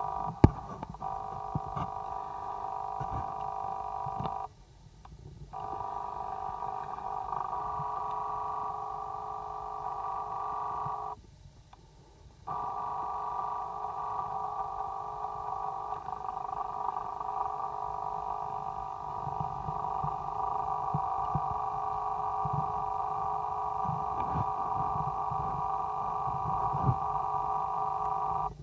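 A steady hum of several held tones that cuts out twice for about a second, with faint low knocks under it.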